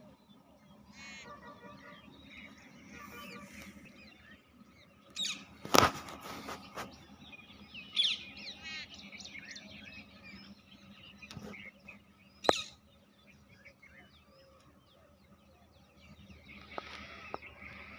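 Birds chirping and trilling, many short calls overlapping, over a faint steady low hum. A few sharp knocks stand out above them, the loudest about six seconds in and another about twelve seconds in.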